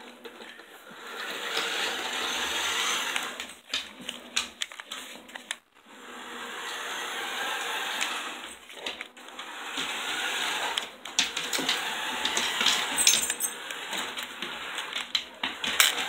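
Small electric drive motor and gears of a toy RC side-by-side car whirring in bursts of a few seconds as it is driven, with scattered clicks and knocks.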